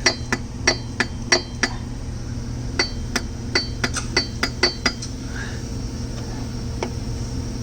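Pieces of a broken crankshaft clinking and knocking together as they are handled. There are about a dozen sharp, ringing metal clinks in the first five seconds, over a steady low hum.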